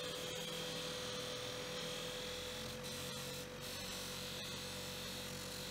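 Bench grinder with a buffing wheel running steadily, a constant hum with a high whine over it, as an aluminium hammer handle is polished against the wheel.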